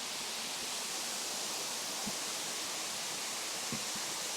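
Steady rushing of a waterfall, its water pouring and splashing, with two faint knocks partway through.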